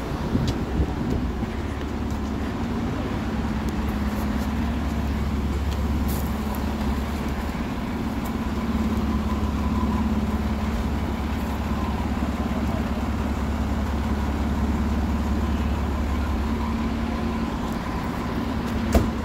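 Fire engine's diesel engine running steadily, a low even drone with a faint steady high tone above it. One sharp click near the end.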